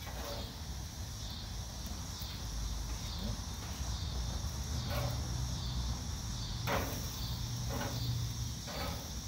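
A few sharp clicks and scrapes of a metal grilling utensil on a gas grill's grate as burgers are lifted off, mostly in the second half. Behind them run a steady high pulsing insect trill and a low rumble.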